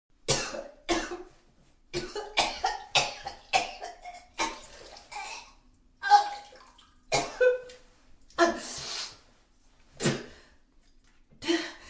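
A woman retching and vomiting: a string of short, separate gagging heaves with her voice in them, broken by brief pauses.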